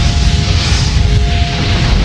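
Loud intro music with a heavy low rumble and a few held tones.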